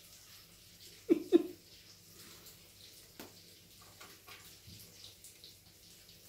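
Faint scuffs and rustles of a cat rubbing its head against the base of a wooden chest of drawers and rolling on the carpet. About a second in come two short, loud voiced sounds in quick succession.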